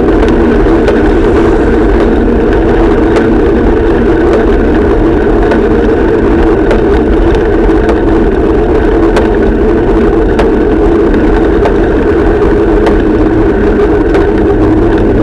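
Loud, steady rumbling hum with scattered light clicks: the running noise of a camera moving along a roadside path.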